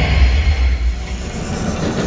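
Capitol Bullet Train steel roller coaster train rumbling along its track overhead as a low, heavy rumble, loudest in the first second.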